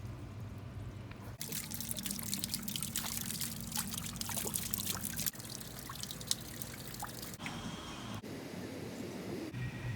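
Water trickling and splattering, its sound changing abruptly several times.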